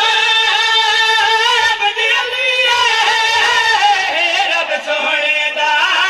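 A man singing a Shia devotional qaseeda into a microphone in long, wavering, ornamented sung lines, with no breaks.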